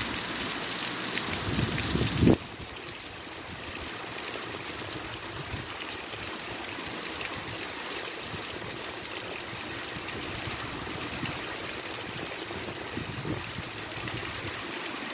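Heavy rain pouring down, an even hiss. It is louder for the first two seconds, ends that stretch with a brief bump, then settles into a steady, slightly quieter downpour.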